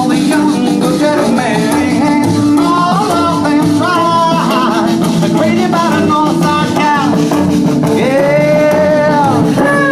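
A band playing with a singer, the melody wavering up and down; the voice holds one long note near the end.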